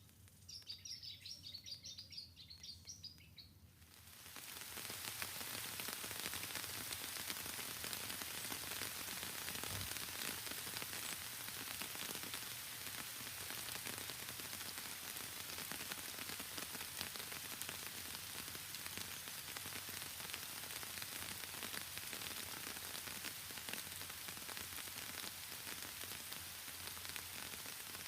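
A small songbird chirps in a quick high series for the first few seconds. Then heavy rain comes on suddenly, about four seconds in, and pours steadily in a dense hiss.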